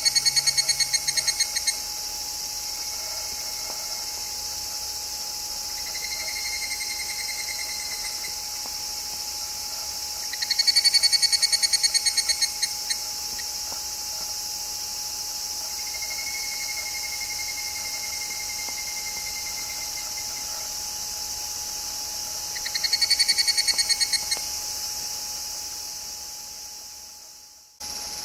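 Higurashi (evening cicadas) calling: three loud, high, ringing trills about eleven seconds apart, each slowing and fading over two to three seconds, with fainter trills between them. Under them runs a steady high hiss of other insects. Near the end everything fades out briefly, then comes back.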